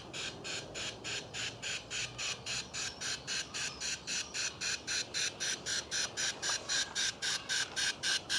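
Simulated steam chuffs from a battery-powered LGB Stainz model locomotive: even, hissy chuffs about four a second, growing louder toward the end as the engine comes closer.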